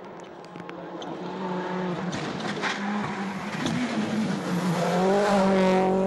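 Rally car engine coming closer at speed, its note climbing through the gears and getting steadily louder, with a few sharp cracks along the way.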